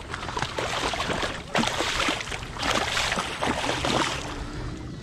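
A large catfish thrashing and splashing in shallow water at the line's end as it is pulled in, in irregular bursts that are loudest between about one and a half and four seconds in.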